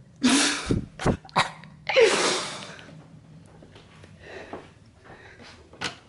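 A person's loud, breathy vocal outbursts close to the microphone: one just after the start and a bigger one about two seconds in that falls in pitch, with two short knocks between them.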